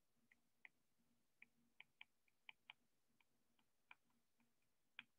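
Faint, irregular clicks of a stylus tip tapping on a tablet's glass screen while handwriting, a dozen or so in quick, uneven succession, the loudest near the end.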